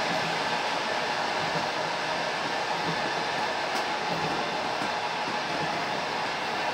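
Passenger train running at speed, heard from a passenger's seat: a steady rolling noise of wheels on rails, with faint low knocks now and then.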